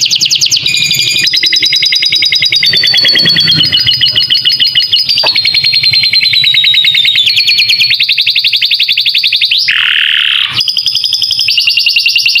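Domestic canary singing a long run of rapid trills, fast repeated notes that switch to a new pitch every second or so, with a short harsh, buzzy note about ten seconds in, typical of a canary that has learned lovebird-style fill-ins.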